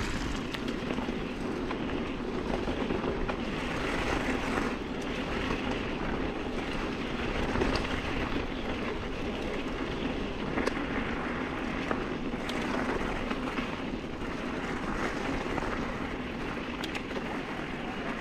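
Mountain bike riding down a bumpy dirt trail: steady rolling noise of the tyres on dirt and stones with the bike rattling, and a few sharp knocks along the way.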